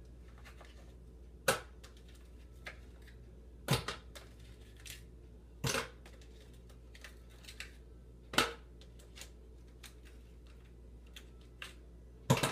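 Ice cubes taken from a plastic tray and dropped one at a time into a blender jar, each landing with a sharp clack, about five drops a couple of seconds apart with faint clicks of the tray between.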